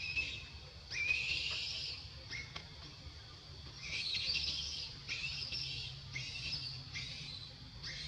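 Short, high-pitched, squeaky chirping calls repeated about six times with gaps between them, some rising slightly in pitch, over a low steady rumble.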